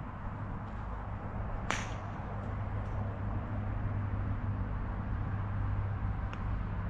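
A single sharp click about two seconds in, the crack of a park golf club striking a ball, with a few fainter ticks after, over a steady low rumble.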